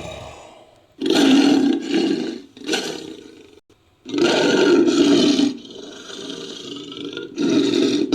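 Bigfoot creature sound effect: a series of deep roars mixed from ape, bear and lion recordings. A roar comes about a second in and a short one follows. A longer roar trails off quietly, and another begins near the end.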